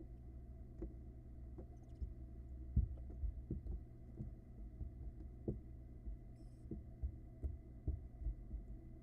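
Barn owl nestlings moving about the wooden floor of their nest box, making a dozen or so soft, dull thumps at irregular intervals, with the loudest about three seconds in. The thumps sit over a steady low hum.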